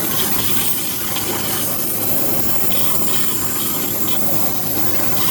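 High-pressure waterjet cutting silicone, a loud steady hiss of the jet with a few brief on-off changes in the upper hiss.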